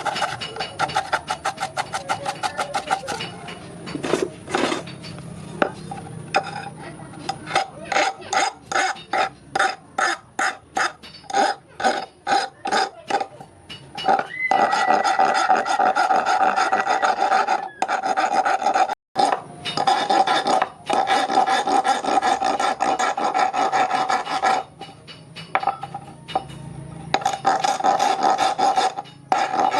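A steel S hook being filed by hand: rasping file strokes, quick at first, then about two strokes a second, then a long stretch of fast, nearly continuous rasping with a steady ringing tone in the metal.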